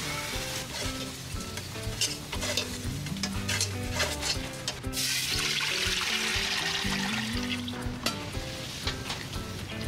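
Minced garlic frying in a steel pan, stirred with a metal utensil that scrapes and clicks against the pan. The sizzle grows much louder about halfway through, then dies down, with a sharp metal click near the end. Background music plays throughout.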